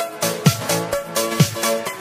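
Electronic dance music with a steady beat: a deep kick drum about once a second with sharp hits between, under held synth chords.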